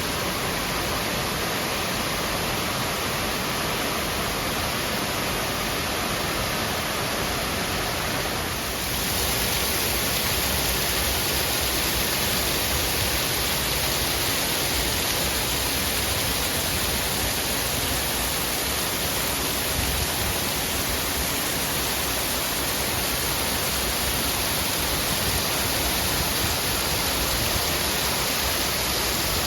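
Steady rush of a waterfall, an even roar of falling water that turns a little brighter and hissier about nine seconds in.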